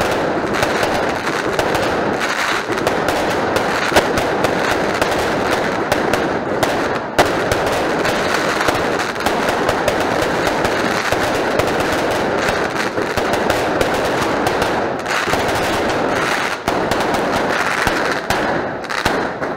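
Fireworks crackling and popping in a dense, unbroken run, with a few louder single cracks standing out.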